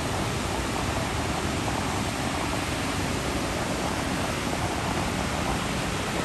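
Sea surf breaking on a sandy shore, a steady rushing noise with no clear separate wave crashes.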